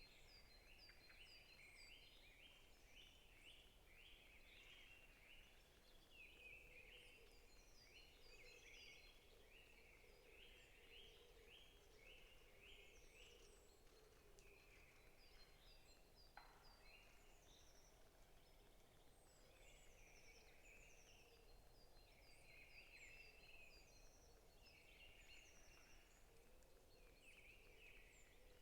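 Several forest birds calling and singing faintly: runs of rapid short notes, with thinner, higher chirps over them.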